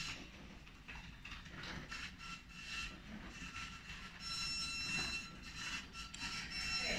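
Traverse drive motor of a TIME3234 surface waviness tester running as its stylus is drawn across the workpiece: a faint, steady whine of several high tones that grows stronger about four seconds in.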